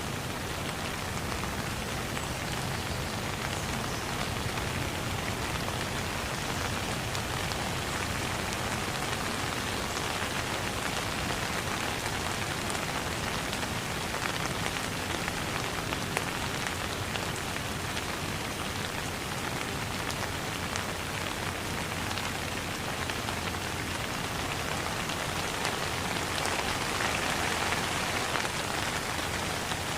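Steady noise of falling water: a dense, even hiss with many fine drop ticks, swelling slightly near the end. No birdsong stands out.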